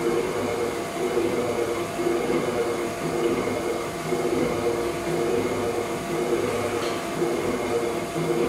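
Kasto PSB 4 power hacksaw running: its electric motor hums steadily while the saw bow reciprocates, the sound swelling and fading in a regular rhythm about every one and a half seconds with each stroke.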